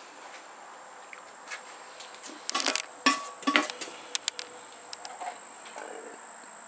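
Pieces of cabbage palm knocking against a stainless steel stock pot: a quick run of sharp clinks and knocks in the middle, some with a short metallic ring.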